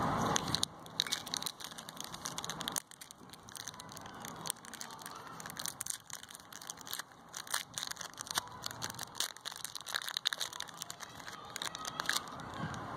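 Foil-lined plastic candy wrappers on chocolate-caramel toffees and a chocolate bar crinkling and tearing as they are opened by hand. The sound is a long run of sharp, irregular crackles.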